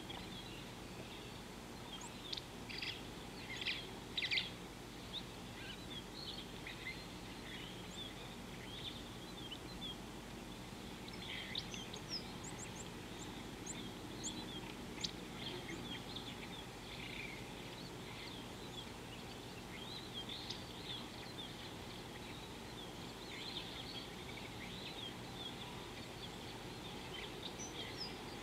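Wild birds chirping and calling in short, scattered notes over a steady background hiss of outdoor ambience. The calls come loudest a few seconds in.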